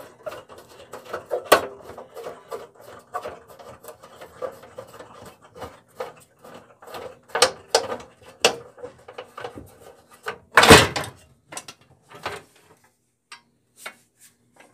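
Plastic front wheel cover of a Craftsman 10-inch direct-drive bandsaw being worked loose and lifted off: a string of small plastic clicks and knocks, with a louder clatter about ten and a half seconds in.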